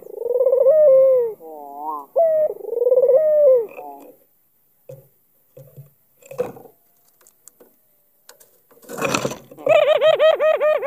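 White (albino) ringneck dove (puter) cooing, with rolling, wavering coos through the first four seconds. About nine seconds in there is a brief burst of noise, then a quick run of short repeated notes near the end.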